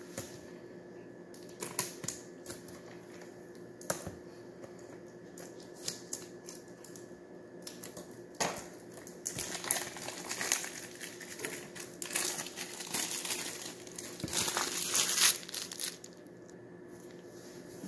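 Clear plastic shrink-wrap being peeled off a plastic slime jar and crumpled by hand. It gives a few light clicks and taps at first, then a long stretch of crinkling from about halfway through that is loudest near the end.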